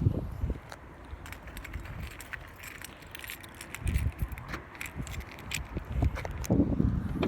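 Scattered light clicks and rattles with a few dull low thumps: handling noise while getting into the car to film its interior.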